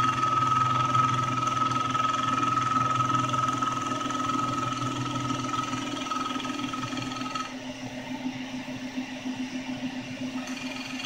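CNC-converted Grizzly G0678 milling machine running, chamfering the edge of an aluminum part with an 80-degree countersink tool. A steady high whine with a low hum under it stops about seven and a half seconds in, leaving a steadier, lower hum.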